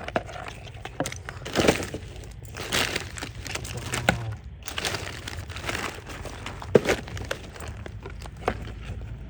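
Hands rustling and crackling through dry ground litter, with sharp snaps and rustles at irregular intervals.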